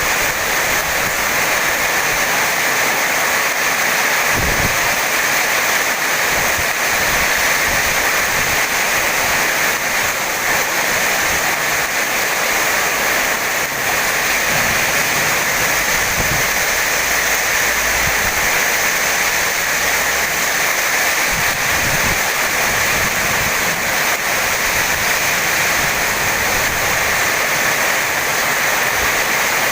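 Heavy tropical rain pouring down steadily as a dense, even hiss, with a few brief low rumbles scattered through it.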